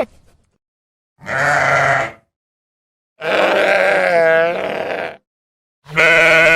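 Domestic sheep bleating: three separate baas, the middle one longest with a quavering, wobbling pitch partway through, the last cut off at the end.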